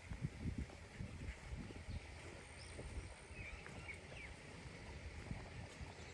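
Outdoor ambience: irregular low thumps and rustling, with a few faint bird chirps.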